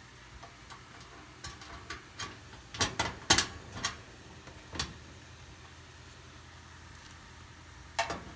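Sharp metal clicks and knocks of screws and a screwdriver against a clothes dryer's sheet-metal bracket as a part is fitted, with a cluster of louder knocks about three seconds in and a few more clicks near the end.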